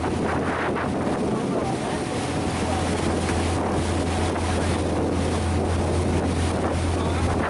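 Charter fishing boat's engine running with a steady low drone, with wind blowing across the microphone and water rushing along the hull.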